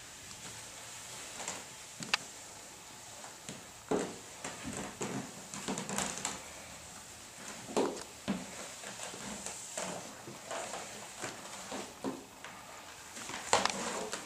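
Footsteps of thigh-high leather boots on a wooden floor: irregular knocks every second or two, with soft rustling of leather clothing between them.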